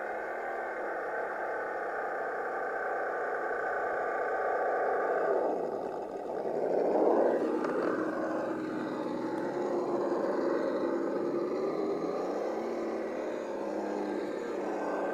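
Electric motor and gearbox whine of a Traxxas 1979 Chevrolet Blazer scale RC crawler, steady at first, then dropping sharply in pitch and climbing back about six seconds in as the throttle is eased and opened again, and wavering with throttle later on.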